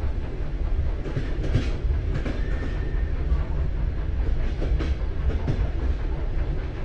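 Recorded sound of a train running, a steady low rumble with faint clicks, played through the speakers of a stationary mock-up railway compartment to go with the moving scenery in its window.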